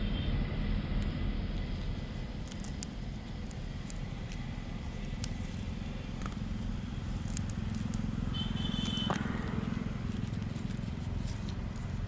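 Steady low outdoor rumble, with faint scattered rustles and clicks as hands wrap a fuse cord around a bundle of paper-cased firecrackers.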